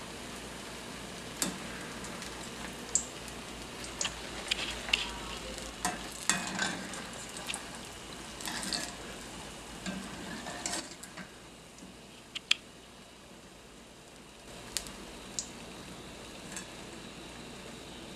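Eggplant pieces deep-frying in a wok of oil, a steady sizzle with scattered clinks and scrapes of a wire spider strainer against the pan. The sizzle grows quieter about eleven seconds in.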